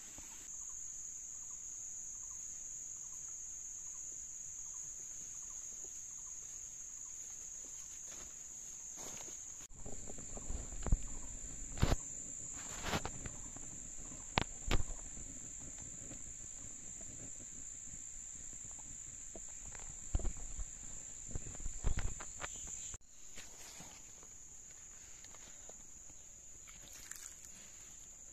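Steady high-pitched drone of forest insects, with a cluster of sharp knocks and thumps in the middle stretch.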